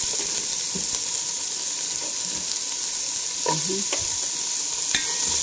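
Chopped onion and garlic sizzling in hot oil in a pan, stirred with a wooden spatula, with a steady hiss and a few light knocks of the spatula against the pan. The onion has just gone in on top of the browned garlic.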